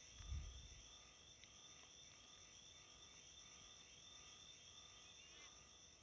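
Near silence: faint steady insect chirring in the background, with one soft low bump about a third of a second in.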